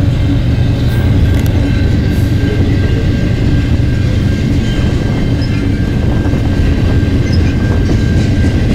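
Freight cars rolling past at close range: a steady, loud rumble of steel wheels on rail, with a thin steady high tone above it.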